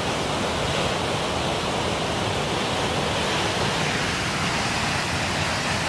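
A large waterfall rushing: a steady, even roar of falling water and spray.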